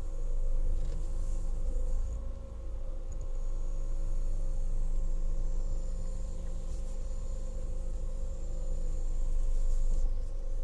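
Ford Mondeo engine running steadily while the steering is worked, with a few faint knocks or creaks over it: the extraneous knock or squeak that comes when the wheel is turned to the right, pointing to a fault in the steering.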